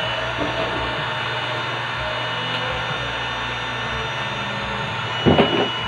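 Electric air pump running steadily with a constant hum and a thin high whine, blowing air into an air bed through its valve as the mattress inflates. Two brief louder knocks near the end.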